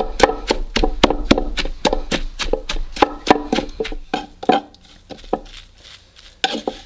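Wooden pestle pounding chopped mint, cilantro and green onions into a chili paste in a wooden mortar: a steady run of dull wooden thuds, about three or four a second, that slows and grows quieter after about four seconds as the herbs wilt and break down.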